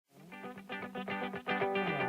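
Background music with a rhythmic plucked guitar melody, fading in from silence over the first second and a half.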